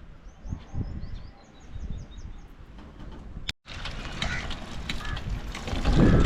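Outdoor ambience with small birds chirping in short quick runs over a low rumble. After an abrupt cut about halfway through, a louder rumbling, clattering noise that swells near the end.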